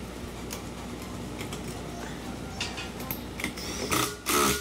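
Small metal clicks and scraping as piston rings are spread and worked into the grooves of an engine piston, with a louder scrape near the end.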